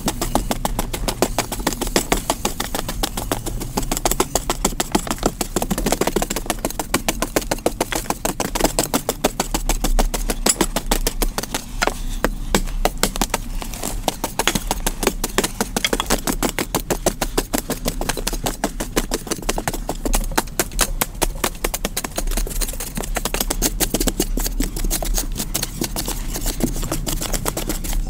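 Hand hoes and a digging tool chopping and scraping into dry soil in rapid, overlapping strokes.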